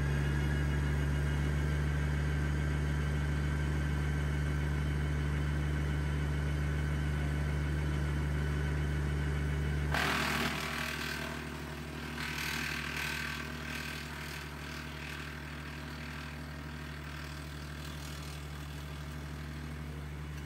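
LS MT122 sub-compact tractor's 22 hp diesel driving a PTO wood chipper, running with a steady note. About halfway through, the note drops back and a rough crackling shredding noise takes over as green cedar branches are fed into the chipper.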